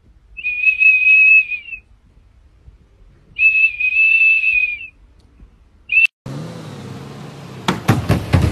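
A small plastic whistle held in a golden retriever's mouth blows two long, steady, shrill notes of about a second and a half each, then a short toot. Near the end it gives way to outdoor noise with a few knocks.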